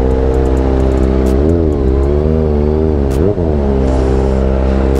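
Kawasaki ZX-25R's 250 cc inline-four with an AR full-system exhaust, running at low revs while riding slowly. The revs rise and fall back twice, about one and a half seconds in and again around three seconds in.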